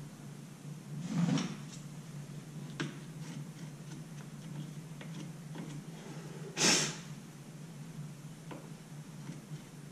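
Two short, sharp breaths through the nose, one about a second in and a louder one near seven seconds, over a steady low hum. Faint small clicks come from hands working at the brake caliper bracket bolt.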